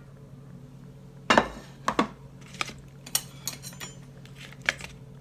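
Kitchen utensils and dishes clinking while food is served: one loud knock a little over a second in, then a string of lighter clinks.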